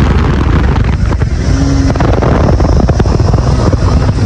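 Wind buffeting the microphone of a phone held out from a moving motorcycle, a loud steady rumble, with the motorcycle running underneath.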